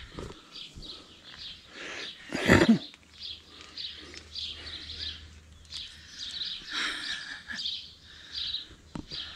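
Small birds chirping over and over in short high calls. A short, loud rush of noise cuts across them about two and a half seconds in.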